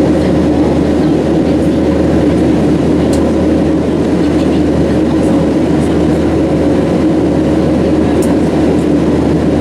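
Steady, unchanging drone of a Boeing 737's jet engines and airflow heard inside the passenger cabin, a deep rumble with a faint steady hum running through it.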